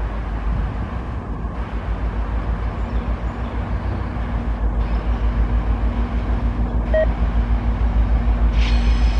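VIA Rail F40PH diesel-electric locomotive approaching slowly with its passenger train, a low pulsing engine rumble growing steadily louder. Near the end a high ringing squeal of wheels on the curving track sets in.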